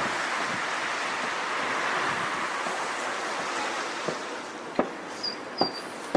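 Floodwater rushing, a steady noise that eases off about four seconds in, followed by two sharp knocks near the end.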